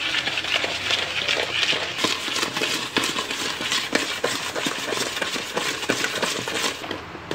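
A spoon stirring and scraping in a bowl, with quick irregular clicks and scrapes, as fresh yeast is mashed into sugar until the sugar dissolves and the mix turns liquid.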